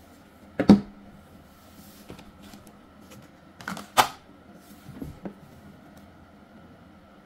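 A few light clicks and knocks from a cordless hair clipper and a plastic blister pack being handled on a tabletop, the sharpest one about four seconds in.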